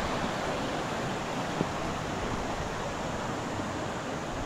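Rushing water of a mountain stream: a steady, even hiss. A single light tap sounds about one and a half seconds in.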